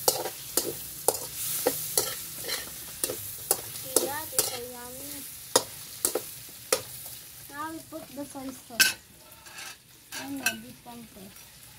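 Metal spatula scraping and clinking against a steel frying pan about twice a second as chunks of chicken and pork are stirred, the meat sizzling as it browns over a wood fire. The clinks thin out near the end.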